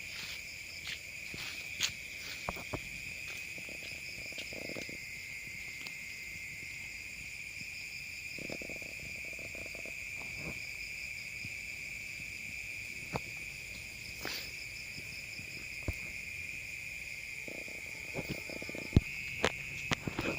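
Night insect chorus of crickets: a steady, high, continuous trill, with a few faint scattered clicks.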